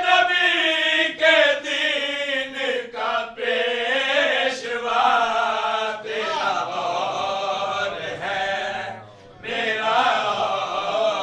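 A man's voice reciting a qaseeda, a devotional Urdu/Punjabi poem, in a melodic chant with long held, wavering notes. There is a brief pause about nine seconds in.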